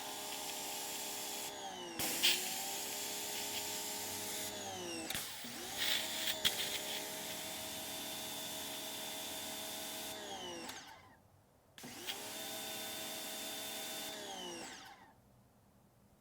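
Pressure washer running in four bursts, a steady motor hum over a hiss, its pitch dipping as each run starts and falling away as the motor winds down, then quiet near the end.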